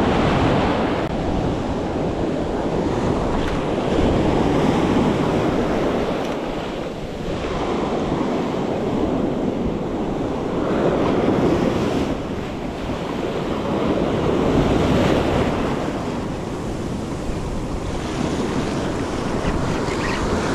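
Ocean surf breaking and washing up a sandy beach, the rush of water swelling and fading every few seconds, with wind buffeting the microphone.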